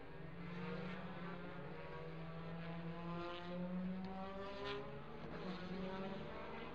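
WTCC touring cars' 1.6-litre turbocharged four-cylinder engines running at race pace, rising in pitch and dropping back a couple of times as they accelerate and shift.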